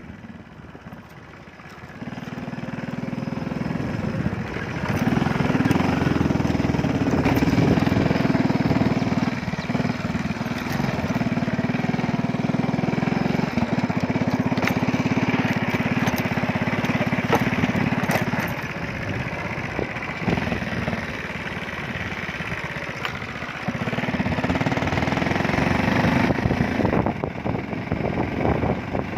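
Motorcycle engine running on the move, its note growing louder and dropping back several times as the bike speeds up and eases off.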